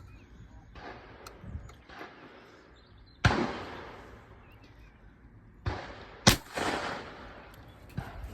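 Webley and Scott bolt-action .410 shotgun shooting at clays: two loud, sharp reports about three seconds apart, each trailing off, with light mechanical clicks near the end.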